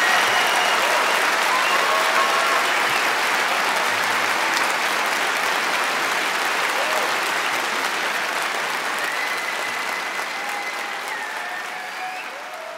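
Concert audience applauding, with a few shouts and whistles, the applause slowly fading out.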